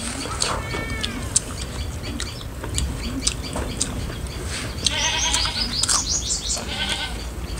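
An animal bleating: a long wavering call of about a second and a half starting about five seconds in, with a shorter call near the start. Small clicks of hands and food on metal plates are heard throughout.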